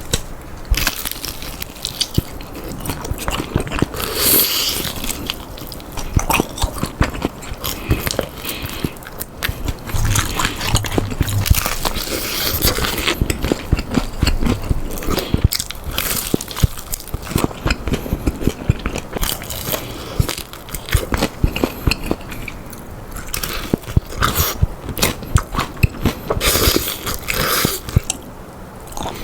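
Biting and chewing crispy fried chicken (bhc Bburinkle, cheese-powder seasoned), with repeated crunches of the coating between spells of chewing.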